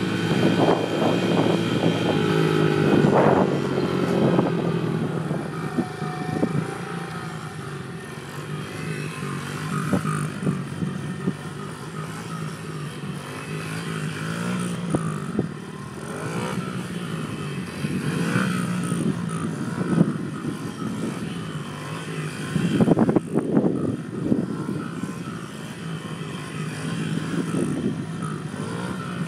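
A small 50cc pit bike engine running and being revved, its pitch rising and falling as the throttle is worked through the wheelies, with a few sharp knocks around 23 seconds in.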